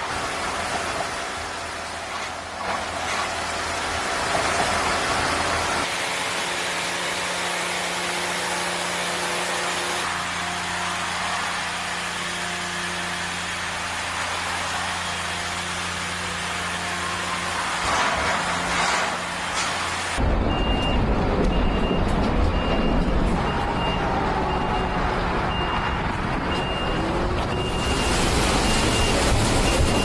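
Heavy road-paving machinery running, a steady diesel engine drone with hiss. In the second half a reversing alarm beeps at an even pace, about one and a half beeps a second, over a deeper rumble.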